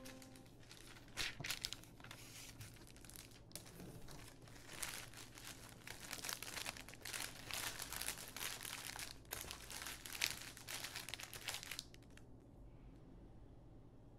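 Crinkly wrapping material being handled and crumpled, a busy stream of crackles and rustles with sharper snaps, which stops near the end, leaving only a faint steady low hum.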